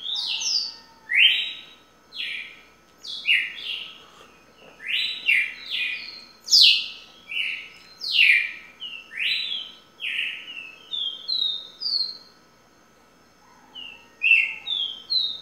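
Songbird singing loud, clear whistled phrases: steep down-slurred whistles mixed with quick runs of short notes that step upward in pitch. It pauses briefly near the end, then starts again.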